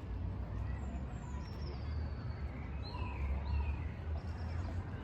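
A steady low rumble with several short, high bird chirps and falling whistles over it.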